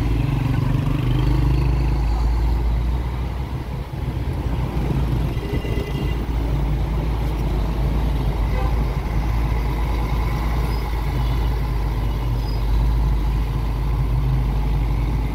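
Steady low rumble of a car's engine and tyres on the road, heard from inside the cabin while driving through city traffic.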